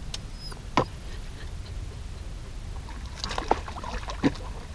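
A dog splashing at the rocky edge of a lake, with a single sharp splash just under a second in and a run of short splashes about three seconds in, over a steady low rumble.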